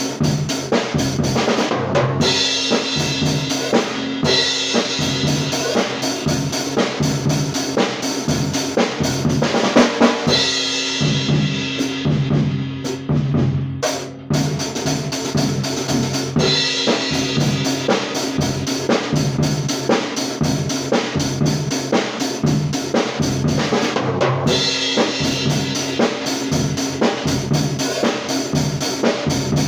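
Isolated drum kit track playing a pop-rock beat, with kick drum, snare and cymbals in a steady rhythm. There is a brief dip about halfway through before the beat carries on.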